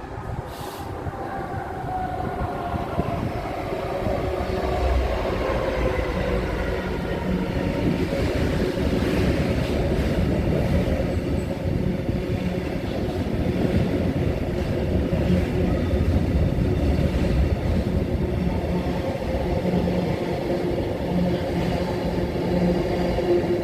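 Train passing at speed on the main line: a whine drops in pitch over the first few seconds, then a long, steady rumble of wheels on rail with a low hum goes on for the rest of the time.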